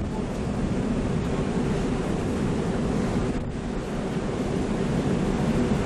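Wind buffeting the microphone over rough, choppy sea, with a steady low hum underneath from the ferry.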